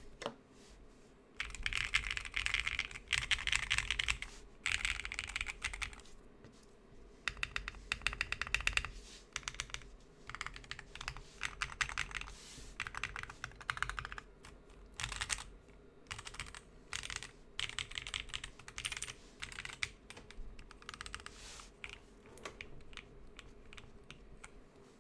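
Typing on a Neo80 mechanical keyboard with Akko Cream Yellow Pro linear switches, an FR4 plate, PBT XDA keycaps and no foam inside. The keystrokes come in quick runs of a second or two, broken by short pauses.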